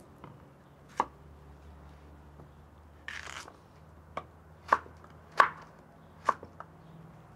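A kitchen knife slicing calabacita (Mexican squash) on a wooden cutting board: sharp, separate knocks of the blade hitting the board, one about a second in and a quicker run of five or so in the second half, with a short rasping slice just before that run.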